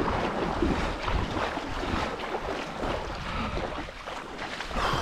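Sea water splashing and sloshing irregularly around a person moving through shallow water, with wind buffeting the microphone.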